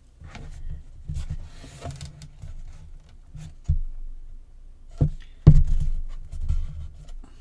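Chipboard box pieces handled on a tabletop: rubbing and shifting, with several knocks, the loudest about five and a half seconds in.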